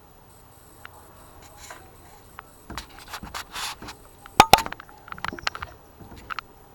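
Short rubbing and scraping sounds with scattered clicks, two sharp clicks the loudest about four and a half seconds in.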